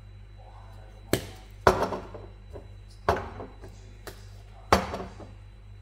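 Four sharp knocks of a glass spice jar being tapped and handled over a mixing bowl while seasoning, each with a short ringing tail.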